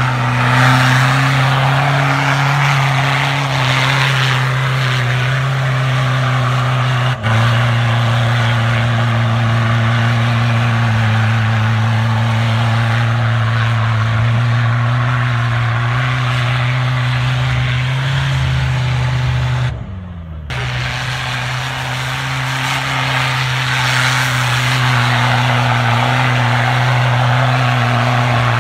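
Toyota Hilux 3.0 turbo-diesel off-road engine held at high revs at a steady pitch as the truck claws up a snowy, muddy slope with its wheels spinning. There is a brief break about seven seconds in, and about twenty seconds in the engine note dips and falls in pitch before picking up again.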